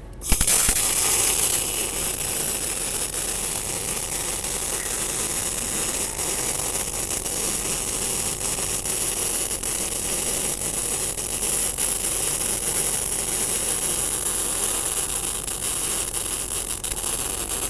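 MIG welding arc from a TOPGUN MIG 315VS single-phase welder laying a bead on steel: a steady crackling hiss that strikes up right at the start.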